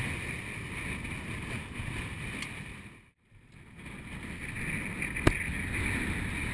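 Wind buffeting an action camera's microphone, with water and boat noise on a choppy sea. The sound fades out briefly about halfway and comes back, and a single sharp click comes near the end.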